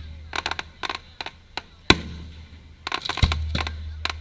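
Aerial fireworks going off: clusters of sharp crackling pops, with two heavy booms a little over a second apart, each followed by a low rumble.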